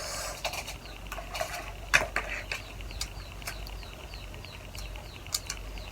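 Cutlery clinking against dishes in scattered sharp clicks, with the sounds of food being eaten.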